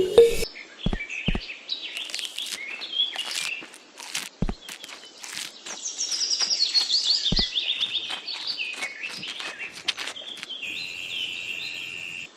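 Birds chirping and calling, with quick descending trills partway through and a steady high whistled note near the end. A few sharp clicks sound here and there.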